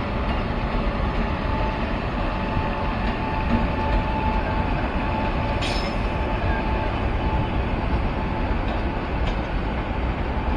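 Indian Railways passenger train, a WAP-7 electric locomotive hauling double-decker coaches, running through without stopping: a steady rumble of wheels on rail. A faint, thin squeal sits above it through the middle.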